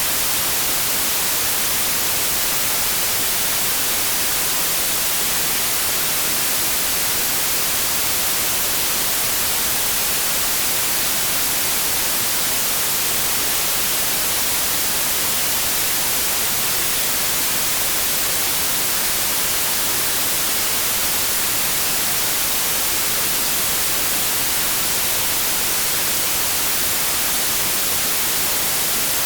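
Synthetic white noise: a steady, unchanging hiss.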